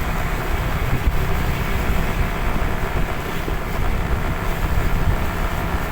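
Steady vehicle engine and road noise while travelling along a road, with wind rushing over the microphone.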